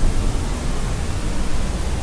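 Steady synthetic noise with no tones or changes, its energy heaviest in the low end, like pink noise: a continuous sleep-aid noise track.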